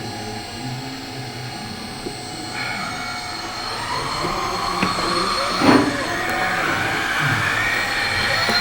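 Whining and squealing of RC model construction machines' electric motors and gearing, growing louder from about two and a half seconds in, with a short knock a little past halfway.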